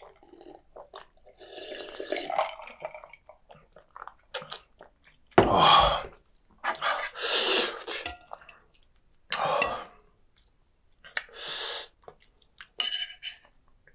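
A man coughing and blowing out hard breaths, about six short bursts, the loudest about five seconds in.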